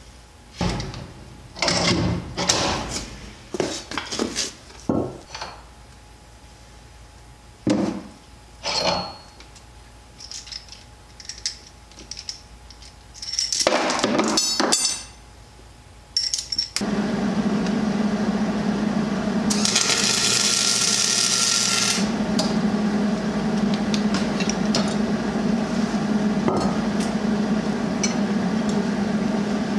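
Scattered metal clanks and clinks of hand tools and parts against a semi truck's drive-axle wheel hub as its bearing and seal are taken out. Past the middle, a steady low hum takes over, and a few seconds later a loud hiss lasts about two seconds.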